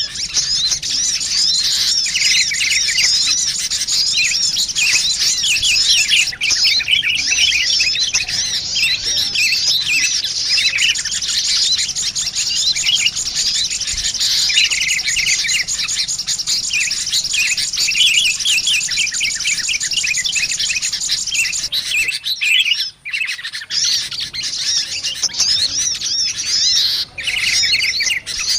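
Sunbird lure calls mixed with sooty-headed bulbuls: dense, continuous high-pitched chirping and twittering of many small birds, briefly broken twice near the end.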